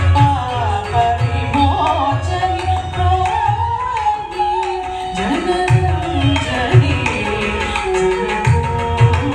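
Live Carnatic dance accompaniment: a singer's sliding, ornamented melody over steady hand-drum strokes and sharp rhythmic clicks.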